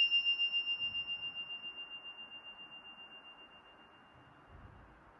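A small silver metal handbell's ring dying away: one clear high tone with a quick, even waver, fading out about four seconds in. It is rung to bring the participants back out of a guided meditation.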